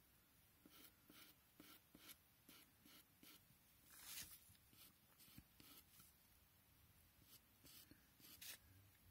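Faint scratching of a pencil tip on paper in quick, short flicking strokes, about two to three a second, laying down fine hair lines. One longer stroke comes about four seconds in.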